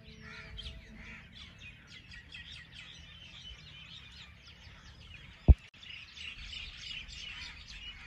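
Many birds chirping at once, short overlapping calls, with a single sharp knock about five and a half seconds in.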